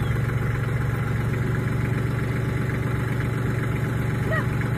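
Compact tractor's engine idling steadily, a low, even hum.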